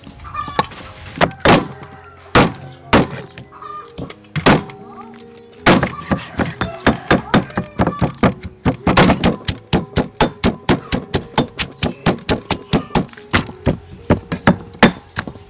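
Knife chopping raw meat on a wooden cutting board and a pestle pounding herb paste in a stone mortar. There are a few scattered strikes, then from about six seconds in a fast, even run of strikes, about four or five a second. Faint background music runs under them.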